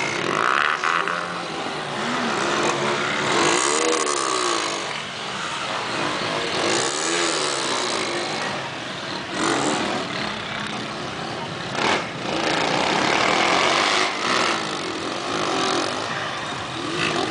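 Engines revving up and down again and again over a noisy background.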